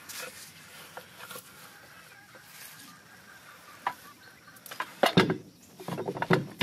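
Simplex mechanical rack-and-pinion jack being set under a shed frame and its handle worked: scattered metal clicks and knocks, with a cluster of louder clanks about five seconds in and again near the end.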